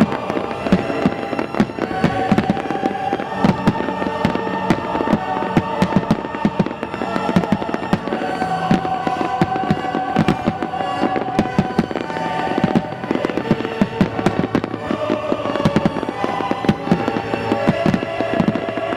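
A fireworks finale: dense bursts and cracks, several a second without a break, over music playing with long held notes.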